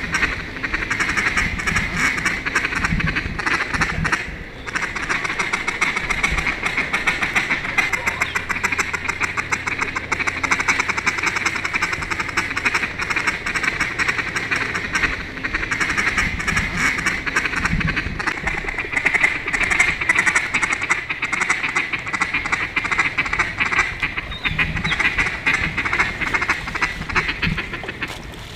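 A large number of ducks quacking and chattering continuously, many calls overlapping into one steady din.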